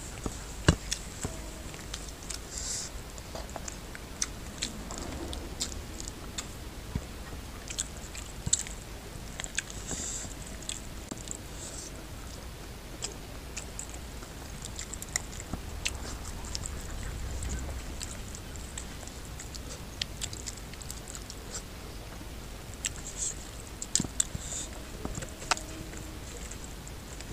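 Close-miked eating sounds: wet chewing and lip smacks, with many scattered sharp clicks and squelches as oily fingers pull meat off a curried goat head and work through rice.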